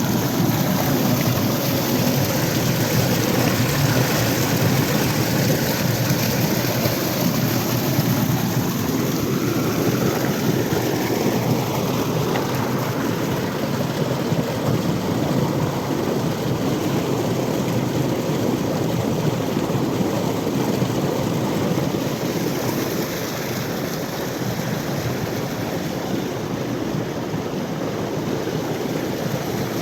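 Irrigation water rushing steadily into a wheat field, a constant noisy wash with no break.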